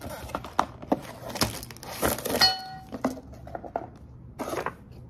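Paper and cardboard packaging rustling and crinkling as a small box is unwrapped and handled, with light knocks and a short squeak about two and a half seconds in.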